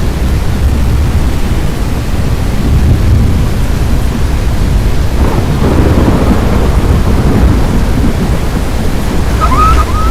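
Loud, steady low rumble of storm wind and rain during a tornado chase. Near the end, a row of short, evenly spaced high chirps starts.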